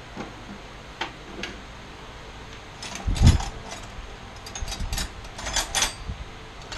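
Metal clicks and knocks from hand tools and parts while a band saw is being taken apart: a few single clicks, one louder knock about three seconds in, then a quick run of clicks.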